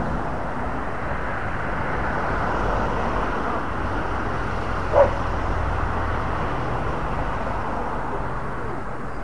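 A steady outdoor rushing noise, with a single short dog bark about halfway through.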